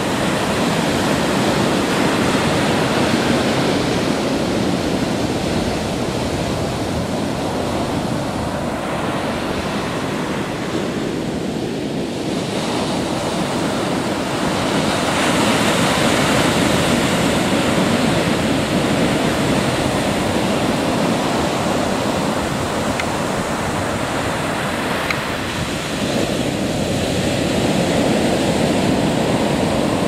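Ocean surf breaking on a sandy beach: a continuous rushing wash of waves that swells louder about halfway through and again near the end.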